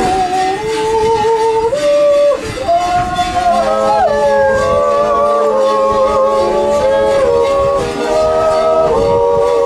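Silvesterchläuse singing a Zäuerli, the wordless Appenzell yodel, in several voices: long held notes that move together from chord to chord, with a low note held beneath from about three and a half seconds in.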